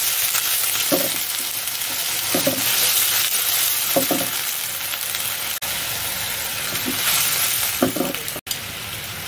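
Fish pieces sizzling and bubbling in a hot nonstick wok just after water has been poured in, a steady hiss with a few short squeaky sounds. The sound cuts out for an instant twice in the second half.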